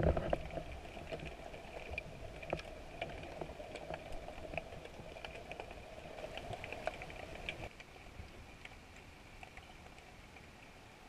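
Faint underwater ambience heard through a camera's waterproof housing: a soft hiss scattered with small clicks and crackles, turning quieter about two-thirds of the way through.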